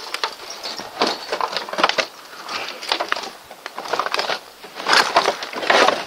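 Broken wood and plastic demolition debris crunching and snapping in irregular bursts, roughly once a second.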